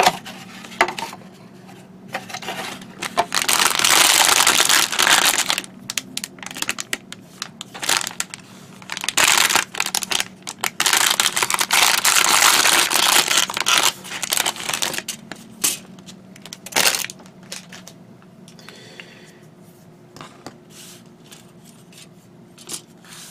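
Plastic packaging of a small model kit crinkling and rustling as it is handled and opened, in two longer loud stretches with scattered clicks and taps between them.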